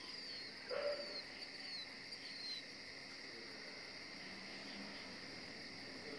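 Faint, steady chirring of crickets with a few short falling chirps over the first couple of seconds, and one brief soft sound a little under a second in.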